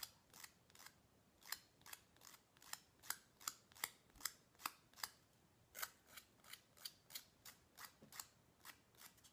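A nail file scraping across the tip of a fingernail in short, faint strokes, about two to three a second, filing off the leftover edge of a nail wrap.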